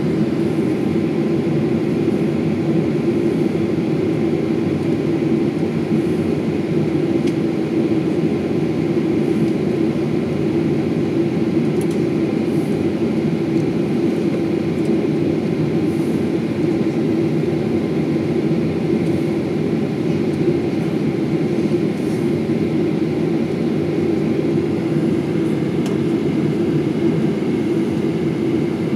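Steady cabin noise of a jet airliner with its engines at idle, a low drone that does not change, while the plane waits on the ground before takeoff.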